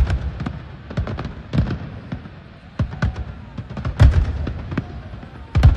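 Fireworks display: a rapid, irregular string of aerial shell bursts, sharp bangs and low booms. The heaviest bangs come about four seconds in and again just before the end.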